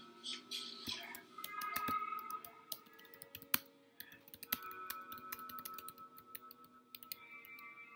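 Typing on a computer keyboard, a quick irregular run of key clicks, over lofi hip hop music playing softly.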